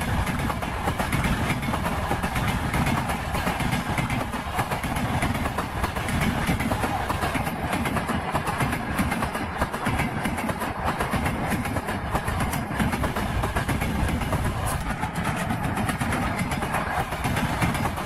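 Passing train's wheels knocking on the rails: a steady, even noise full of rapid clicks.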